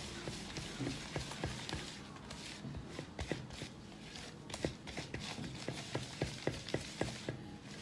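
A spatula stirring butter, sugar and freshly added egg in a glass bowl: a soft wet scraping, broken by quick irregular clicks of the spatula against the glass that come faster in the second half. The egg is being beaten into the creamed butter while the mixture is still separated.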